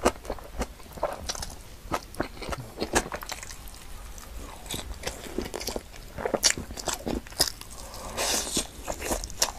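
Close-miked mouth sounds of someone eating in big bites, working through black-bean noodles and saucy food: wet chewing and smacking with many sharp, irregular mouth clicks, and a longer rush of noise about eight seconds in.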